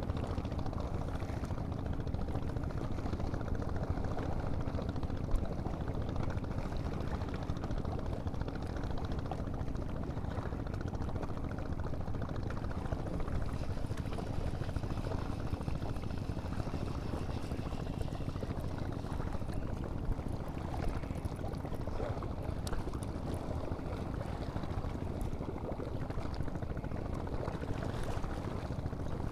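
Steady low rumbling noise of wind on the microphone, with water lapping at a stone shore.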